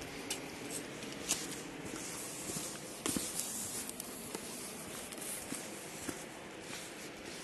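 Footsteps on a loose gravel and stone trail: uneven steps with small stone clicks, the loudest cluster about three seconds in, over a steady hiss.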